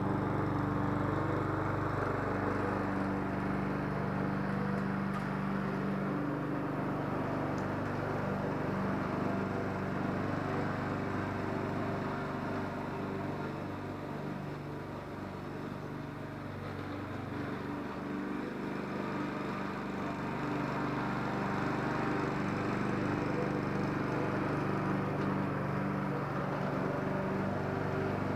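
Radio-controlled lawn mower's engine running steadily. It grows somewhat quieter about halfway through, then comes back up to its earlier level.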